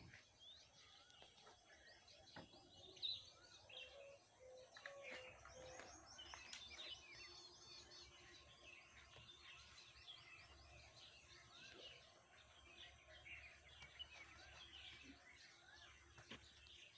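Faint chirping of several small birds over low outdoor background noise, with one short sharp click about three seconds in.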